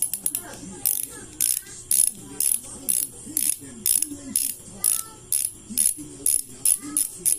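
Freewheel ratchet of a Sagmit Secret 36T bicycle hub clicking as it spins, in short bursts of sharp clicks about twice a second.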